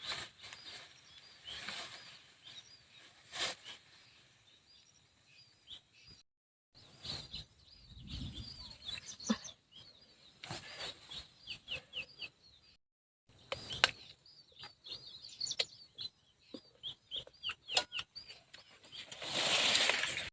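Birds chirping over and over, with scattered knocks and clatters. The sound drops out to silence twice along the way.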